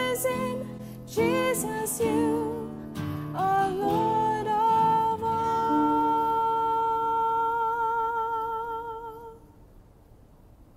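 Worship song sung by a female lead vocalist with acoustic guitar and band accompaniment, ending on one long held note with vibrato that dies away about a second before the end, leaving only faint hiss.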